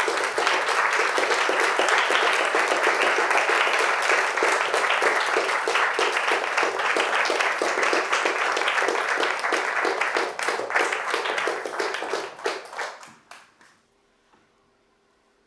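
Audience applauding: dense, steady clapping that thins out to a few scattered claps and stops near the end.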